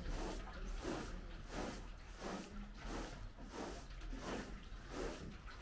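Short straw hand broom swept in quick strokes over a carpet: a rhythmic swish, about two strokes a second.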